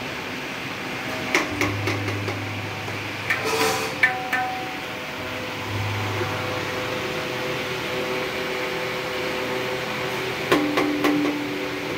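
Tablas being tuned: taps of a small tuning hammer and strokes on the drumheads, each ringing briefly at a clear pitch as the head's tone is checked. The strikes come in a few clusters, about a second and a half in, around four seconds, and a quick run near the end, with a faint low hum coming and going in the first half.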